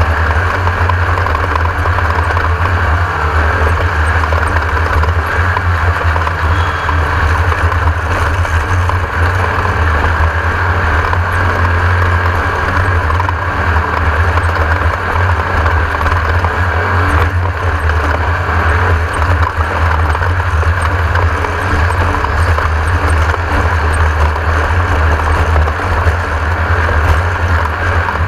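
Class 1600 off-road race car's air-cooled Volkswagen-based engine running steadily at speed, a continuous loud drone.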